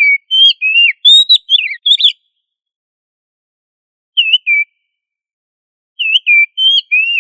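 Oriental magpie-robin (kacer) singing loud, clear whistled notes that slide up and down: a quick run of phrases for about two seconds, a short two-note phrase about four seconds in, and another run near the end.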